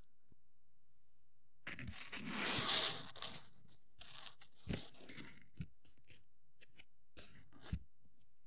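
Hands working on a plastic miniature kit: about two seconds in, a crinkling, tearing rustle lasting a second and a half, then three sharp clicks spread over the following few seconds.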